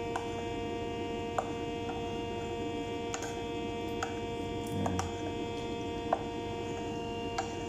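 Steady electrical hum made of several fixed tones, with a few light clinks of a metal spoon against a ceramic bowl as coconut milk is stirred.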